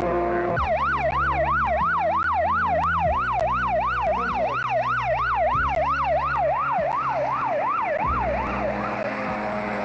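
An emergency vehicle's siren in a fast yelp, its pitch sweeping up and down about three times a second. It starts about half a second in and fades out near the end, over a low hum.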